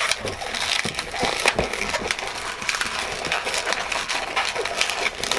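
Inflated latex 260 modelling balloons being twisted and rubbed together by gloved hands: a continuous scratchy crackling of rubber on rubber and fabric.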